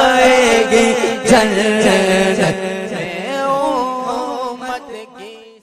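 A naat, an Urdu devotional song, sung with long, ornamented held notes that glide between pitches, fading out near the end.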